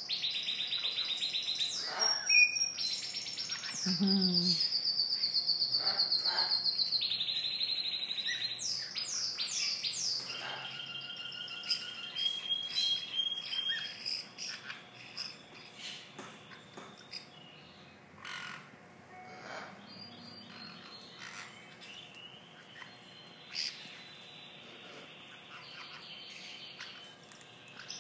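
Cage birds singing and chirping: fast, high trills held for a second or more at a time, loudest in the first ten seconds, then fainter scattered chirps and short calls.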